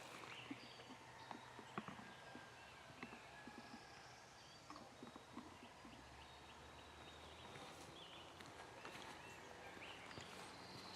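Faint outdoor morning ambience: distant birds calling in short chirps, with a few light clicks and taps in the first two seconds.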